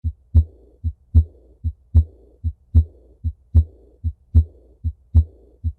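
Recorded heart sounds through a stethoscope at about 75 beats a minute, a steady lub-dub. A soft, blowing murmur fills the longer pause after each loud beat. This is the early diastolic murmur of aortic regurgitation.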